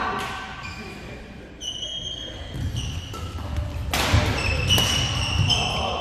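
Court shoes squeaking in short high chirps on the badminton court floor, with two sharp smacks of racket on shuttlecock about four seconds in.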